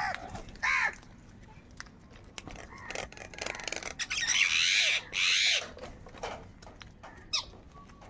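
House crows cawing as a flock feeds: two short caws near the start, then two longer, louder caws about halfway through. Scattered sharp clicks come in between.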